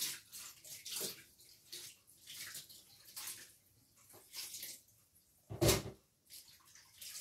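Water splashing and sloshing in a stainless steel kitchen sink as hands rinse something in it, in short uneven bursts. One louder thump about five and a half seconds in.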